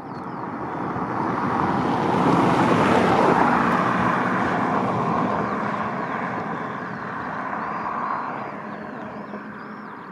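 A vehicle passing by: a rushing sound that swells to its loudest a few seconds in, rises again briefly later, then fades away.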